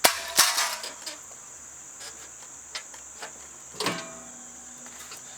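Metal clanking: two sharp clanks at the start and a third clank nearly four seconds in that rings on for about a second, over a steady high-pitched drone of crickets.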